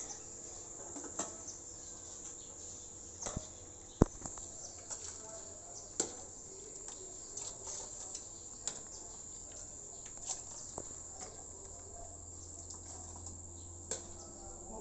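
Metal ladle stirring soup in an enamelled wok, giving scattered short clicks against the pan, the sharpest about four seconds in. A steady high cricket chirring runs underneath.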